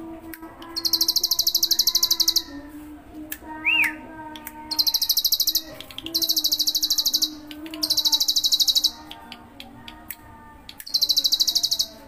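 A caged bar-winged prinia (ciblek) sings its 'ngebren' song: five loud, very high, buzzing rattle trills of rapid even strokes, each about a second or more long, with short pauses between. A steady low hum with overtones runs underneath.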